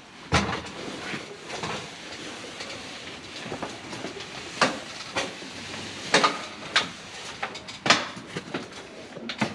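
Boots climbing down a metal ladder, with about nine irregular knocks as the feet land on the rungs, over the rustle and brush of tent fabric.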